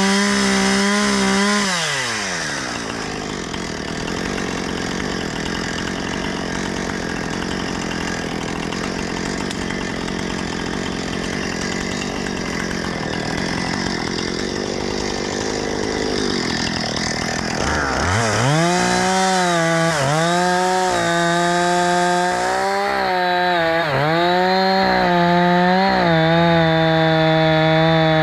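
Husqvarna 460 Rancher chainsaw cutting felled yellow cedar. It revs high at first, then labours under load in one long cut of about fifteen seconds. Near the end it sweeps back up to full revs and holds there, dipping briefly about once a second, typical of quick limbing and topping cuts.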